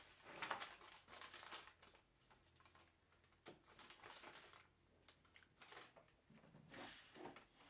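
Faint crinkling and rustling of a thin gold-tinted aluminium foil sheet and its paper backing being handled, in several short spells with near silence between.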